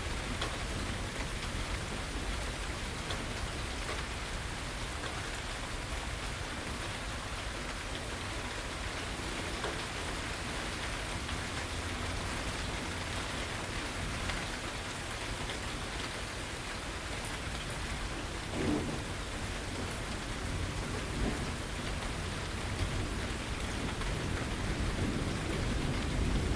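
Steady rain falling on a porch and its surroundings, with a low rumble of distant thunder underneath that swells near the end. A few louder drips or splashes stand out.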